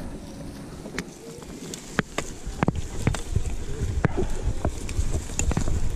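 Mountain bike rolling over a rough dirt trail: a low tyre-and-trail rumble that grows louder about two seconds in, with scattered sharp clicks and rattles from the bike's chain and parts.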